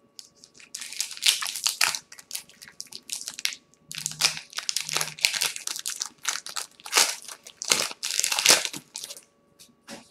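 Foil wrapper of a baseball card pack crinkling and tearing as it is opened by hand. It comes as a run of rustling bursts from about a second in until near the end.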